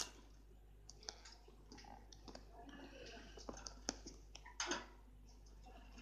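Budgerigar husking seeds with its beak: faint, irregular little clicks and cracks, a few sharper ones in the second half.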